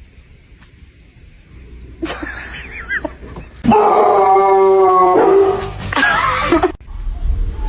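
A dog howling: one long steady howl of about a second and a half near the middle, with shorter wavering whines or yips before and after it.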